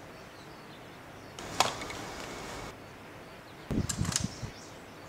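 Buttons of a Tanin portable cassette radio being pressed: a quick cluster of mechanical clunks and clicks near the end. Earlier, about a second and a half in, a single sharp click is followed by about a second of hiss.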